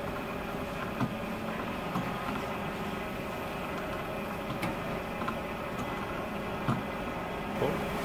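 Quilting-waste recycling machine running with a steady motor hum and a few light clicks.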